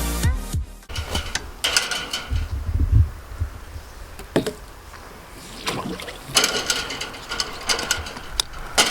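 A piece of music ends within the first second, followed by irregular knocks and clatter over a low rumble.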